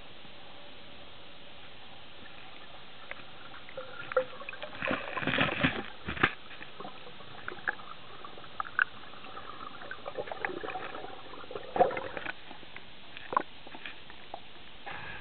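Air bubbles gurgling underwater in two bursts about six seconds apart, over a steady hiss, with scattered sharp clicks.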